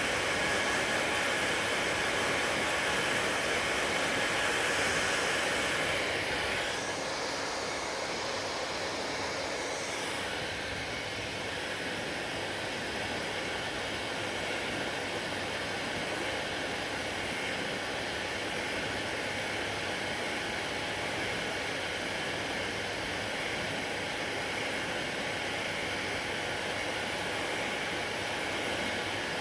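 Hair dryer blowing steadily, an even rushing whoosh of fan and airflow. Its sound changes slightly about six seconds in and again about ten seconds in, then holds steady.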